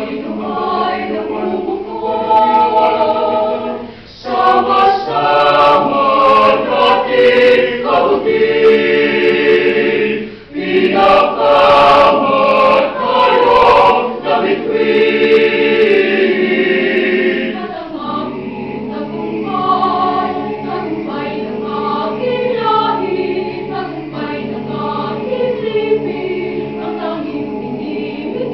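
A university choir singing in sustained chords. It swells louder about two seconds in, breaks off briefly twice, and drops to a softer passage after about eighteen seconds.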